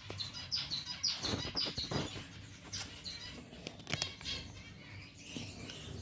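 Gouldian finches calling inside a shipping box: short high chirps, about three or four a second in the first two seconds, then scattered, with rustling and a sharp click about four seconds in.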